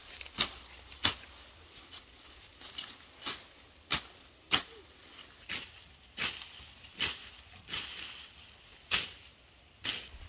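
Footsteps crunching through dry leaves and weeds, about one uneven step a second.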